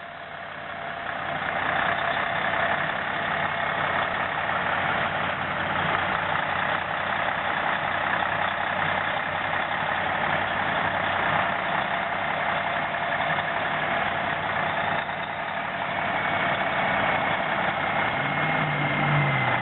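Heavy diesel machinery running steadily: a road milling machine working while loading a Kenworth T800 dump truck. The noise swells up over the first couple of seconds, and a steady whine joins near the end.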